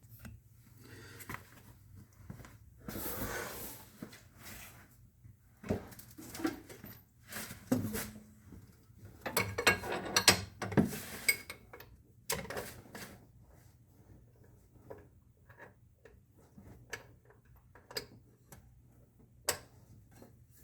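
Handling noises: scattered clicks, knocks and clinks with short stretches of rustling, the loudest cluster a few seconds in and again around the middle, then sparser taps toward the end.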